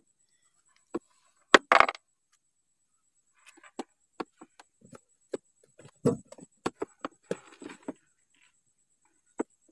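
Handling noise from a small catch being dealt with on a boat: scattered clicks, taps and light knocks, with a louder pair about a second and a half in and a quick run of lighter taps and rustles in the middle.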